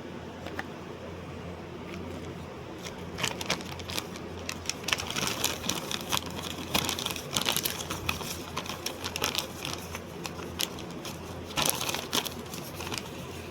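Irregular crinkling and clicking handling noises, clustered through the middle, over a steady low hum.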